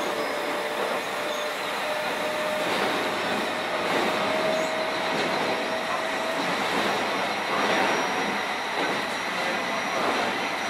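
Keio 7000-series electric train running, heard from inside a passenger car: steady wheel and rail noise, with a whine held for about the first six seconds that then fades.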